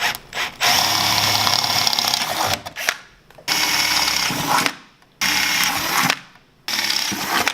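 Power drill running in four bursts, the first about two seconds long and the rest about a second each, boring out pilot holes to 1/4 inch through a snowmobile's tunnel.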